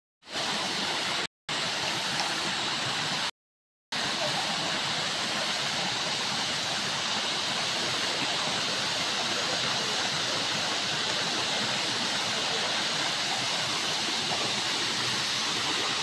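Steady rushing of a rocky mountain river, water running fast over boulders in small rapids. The sound cuts out to silence twice in the first four seconds.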